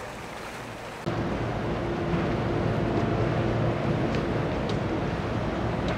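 Boat engine running with a low steady drone over water and wind noise. The sound jumps abruptly louder about a second in.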